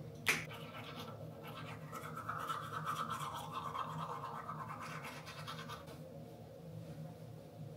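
A single click, then a brisk rhythmic scrubbing for about four seconds.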